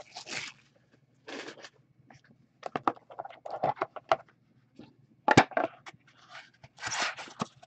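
Hands opening a 2013-14 Upper Deck The Cup hockey card box: the cardboard box and lid scraping and rustling, with scattered clicks and one sharp tap about five seconds in.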